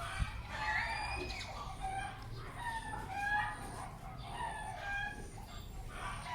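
Chickens calling, a string of short clucks and crowing-like calls.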